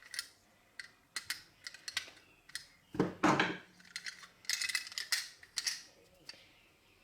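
Small metal parts of a toy truck clinking and tapping as they are handled and set down during disassembly. The loudest clatter comes about three seconds in, and more clinks follow a little later.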